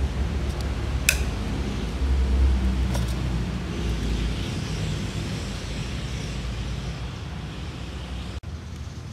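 Steady low rumble of background road traffic, with two sharp clicks from the plastic parts of a fuel pump sender module being handled, one about a second in and one about three seconds in.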